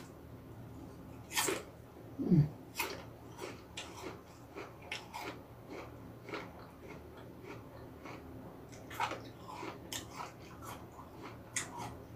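Hongok (Jonathan) apple being bitten and chewed close to the microphone: irregular crunches all through, with a short low sound falling in pitch about two seconds in, the loudest moment.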